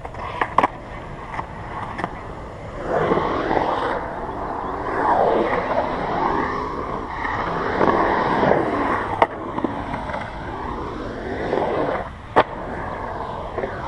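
Skateboard wheels rolling and carving across a concrete bowl, the wheel roar rising and falling in pitch as the board runs through the transitions. There are a few sharp clacks, one near the start and a loud one near the end.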